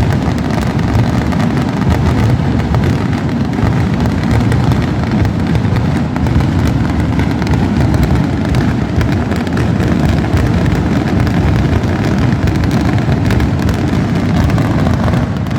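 A continuous barrage of firework rockets (a cohetà) exploding: countless bangs overlapping into one steady, unbroken din.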